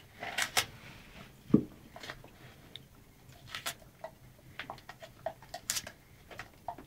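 A German Shepherd biting and tugging at loose wallpaper, its teeth scraping and catching on the paper in short, irregular clicks and scratches. There is one duller thump about a second and a half in.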